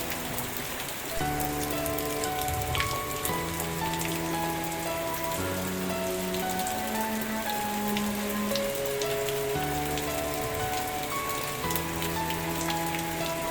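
Steady rain with scattered raindrop taps, under soft background music of held chords that change every couple of seconds.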